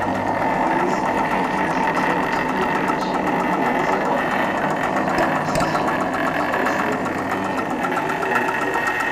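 Cineric Ericson 9.5mm film projector running with film threaded: a steady mechanical hum from its series-wound motor under a fast, even clatter from the film-advance mechanism.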